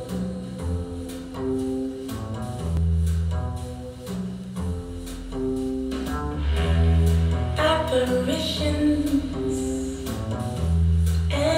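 Music playing through open-baffle speakers with Philips full-range drivers: long, deep bass notes under a slow melody line.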